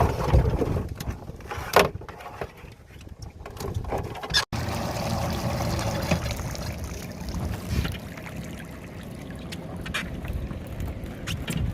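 Outdoor noise from a small boat on the sea, with wind on the microphone, a low rumble and scattered knocks; one knock stands out about two seconds in. The sound breaks off sharply about four and a half seconds in and resumes as a steadier rumble.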